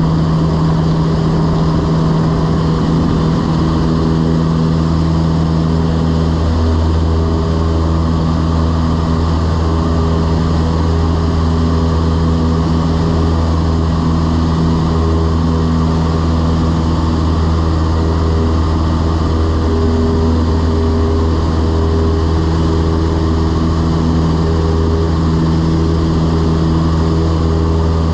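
Cessna 172's piston engine and propeller running at takeoff power through the end of the takeoff run and the climb-out, a loud steady drone. Its deepest hum grows stronger a few seconds in.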